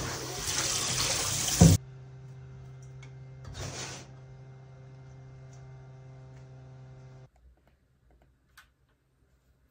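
Kitchen tap running into a stainless-steel bowl in the sink, cut off about two seconds in with a sharp knock, the loudest sound. Then a steady hum with a brief splash, and after a cut near silence with a single click.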